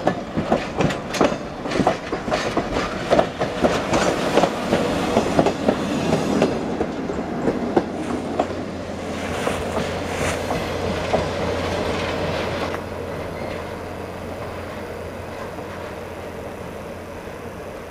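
Passenger train coaches rolling past close by, their wheels clattering over rail joints in quick succession. The clatter thins out after about six seconds as the last car passes, and a little after halfway the sound drops to a fainter, steady rumble as the train pulls away.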